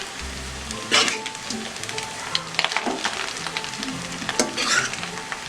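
Food sizzling in a pot on the stove while a spoon clinks and scrapes against it as biryani rice, eggs and potatoes are layered in, with two louder scrapes about a second in and near the end.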